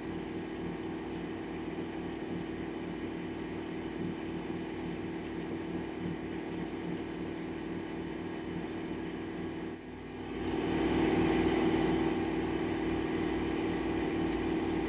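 A steady mechanical hum, like a room appliance running, which grows louder about ten seconds in, with a few faint light clicks in the first half.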